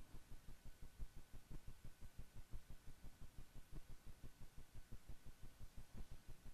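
Faint low throbbing background noise: soft pulses about seven times a second over a faint steady hum.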